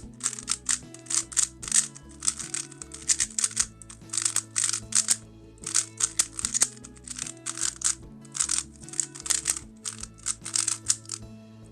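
Fast clicking and clacking of a QiYi WuWei M 3x3 speedcube being turned at solving speed, in quick bursts of turns, over background music.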